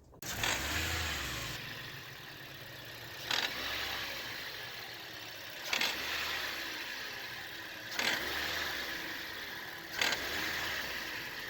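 Toyota Yaris engine running, blipped four times with short throttle stabs about every two seconds, each fading back toward idle. Through it runs the noise of a failing automatic belt tensioner: its bush is worn, so metal rubs on metal and the tensioner vibrates with the sound.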